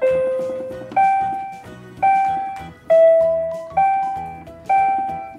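A toy's built-in electronic piano plays a slow melody of single chime-like notes, about one a second, over a soft repeating backing.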